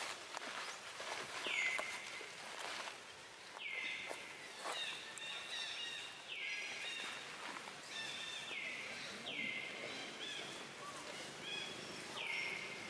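Forest ambience: a high call repeats about every two seconds, each one sliding down in pitch and then holding. Under it are short chirps and light rustling and clicks in dry leaf litter.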